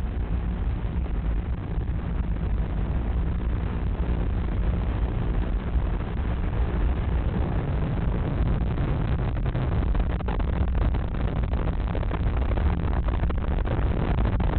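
Steady, loud rumbling noise, heaviest in the low end, with no clear rhythm or pitch.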